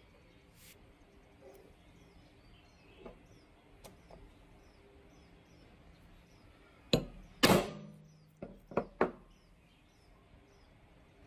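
Steel hollow punch being struck through masking tape onto a wooden strip to cut round holes: a cluster of sharp knocks about seven seconds in, the second the loudest and ringing briefly, then three smaller taps about a second later.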